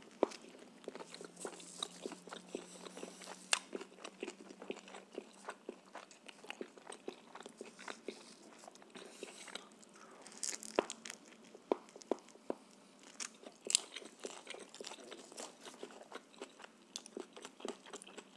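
A person biting into and chewing a homemade shawarma in flatbread, close-miked: a steady run of short wet mouth clicks and smacks, with a few louder bites scattered through.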